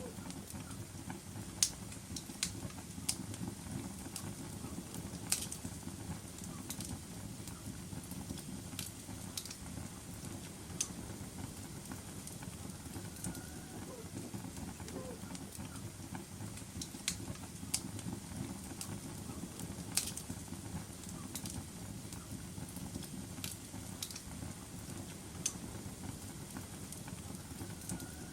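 Wood fire crackling in a fireplace: a steady low rumble of burning with sharp pops and snaps at irregular intervals, about a dozen in all.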